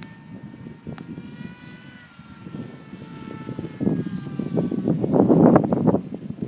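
Electric motor and propeller of a Dynam Hawk Sky V2 RC glider whining in flight, its pitch slowly falling. Wind buffets the microphone in loud gusts, strongest over the second half.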